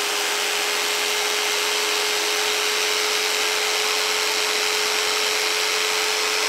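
Electric jigsaw running at a constant speed: a steady whine over a loud, even hiss.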